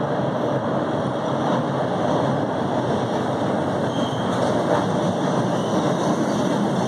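MBTA Orange Line subway train, Hawker Siddeley 01200-series cars, pulling into an enclosed station platform: a steady rumble of steel wheels on the rails.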